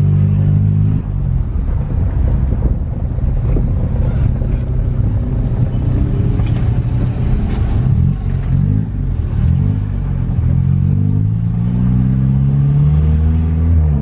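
Car engine heard from inside the cabin while driving: the engine note drops about a second in, then climbs several times in the second half as the car accelerates.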